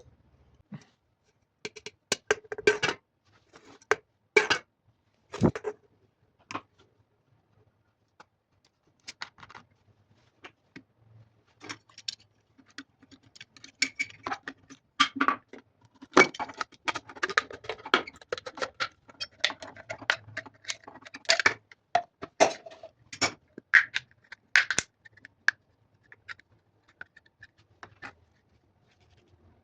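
Irregular clicks, taps, scrapes and light rattles of small objects being handled, typical of hands working with craft materials such as a plastic bottle, with a quieter stretch about a third of the way in.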